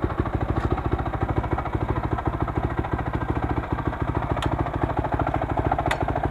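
Honda 450 motocross bike's single-cylinder four-stroke engine idling with a fast, even exhaust beat.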